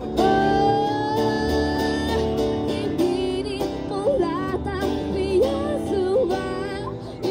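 Street busker singing with her acoustic guitar through a microphone and small portable amplifier: a long held note near the start, then a wavering melodic line over the guitar.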